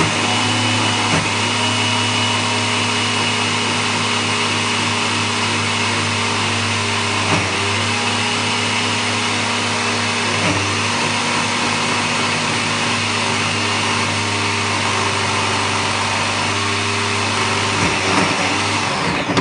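Cecotec Mambo kitchen robot's motor running at speed 9, its blades chopping raw quince and lemon pieces in the steel jug: a loud, steady whir that cuts off abruptly at the very end as the timer runs out.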